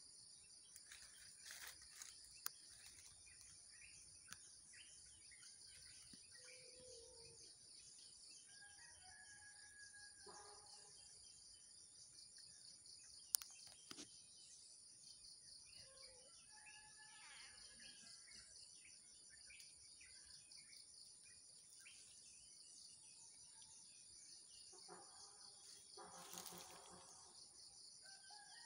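Faint, steady high-pitched drone of insects, with scattered short bird chirps and calls now and then. A single sharp click comes about thirteen seconds in.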